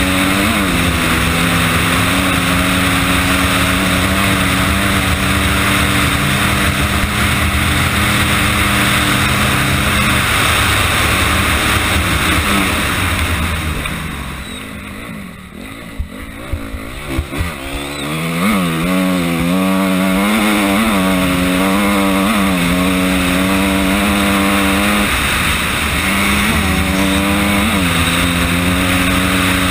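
Honda CRF250R's four-stroke single-cylinder engine running hard under way. About halfway through, the throttle is shut and the engine drops to a lower, quieter run for a few seconds, with a few sharp knocks. Then it picks up again, its pitch rising and falling with the throttle.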